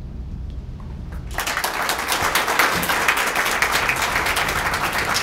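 Audience applauding: a low room hum, then clapping from many hands that starts about a second in and keeps going steadily.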